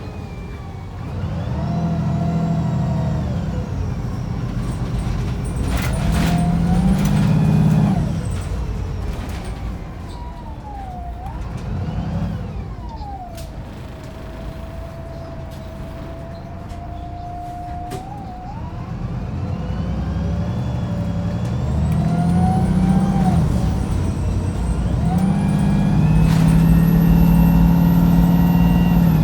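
Wright Pulsar 2 single-deck bus's diesel engine heard from on board, working hard through repeated spells of acceleration, its note rising and then dropping back as it changes up. A high whine rises and falls with it, holds steady while the engine eases off in the middle, and the engine pulls hard again near the end.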